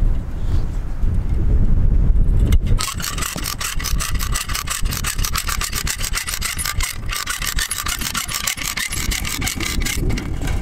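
A low rumble, then from about three seconds in a come-along fence puller's ratchet clicking rapidly and evenly as its handle is worked, stretching a strand of high-tensile barbed wire tight.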